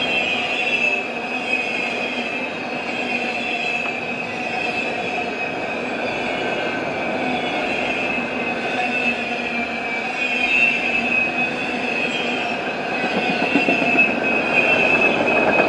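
A CSX freight train of autorack cars rolling past at speed: steel wheels on the rails, with a steady high squeal over the rumble of the cars. It grows a little louder in the last few seconds.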